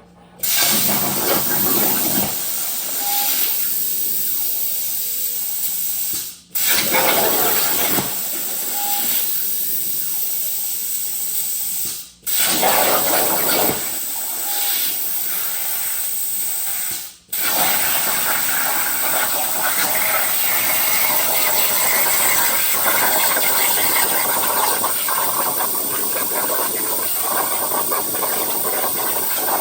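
Plasma cutter cutting 1/4 inch steel plate: a loud, steady hissing arc that starts abruptly, stops briefly three times and restarts each time, then runs without a break through the second half.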